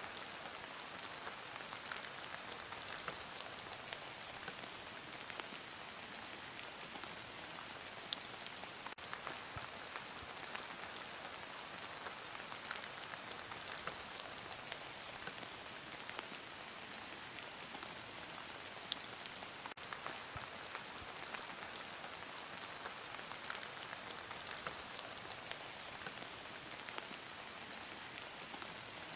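Heavy rain falling steadily, an even hiss with many sharp drop ticks scattered through it.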